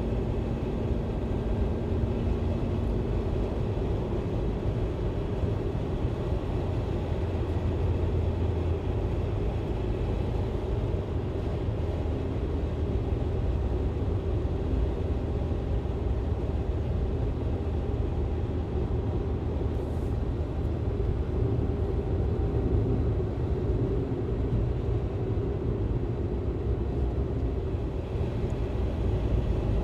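Interior of a moving car: steady low engine hum and road rumble heard from inside the cabin.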